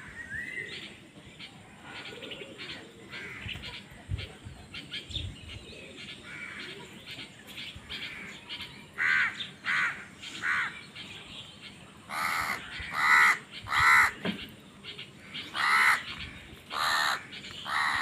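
A flock of house crows cawing: scattered quieter calls at first, then loud, harsh caws from about halfway through, coming roughly one a second.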